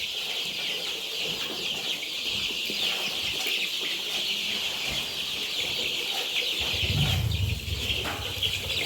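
A large flock of young chickens calling continuously in their house, a dense chatter of many overlapping peeps and clucks. A low rumble joins in about two-thirds of the way through.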